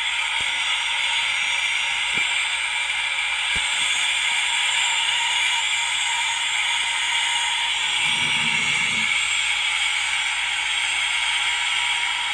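Small speaker of a scale A-10A model's sound module playing a recorded jet engine: a steady hiss with a thin whine, with a few faint clicks in the first four seconds and a brief low rumble about eight seconds in.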